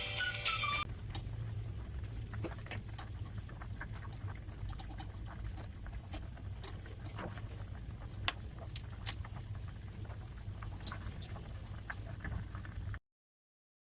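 Background music ending about a second in. Then a steady low hum with faint, irregular small clicks and crackles, several a second, until the sound cuts off near the end.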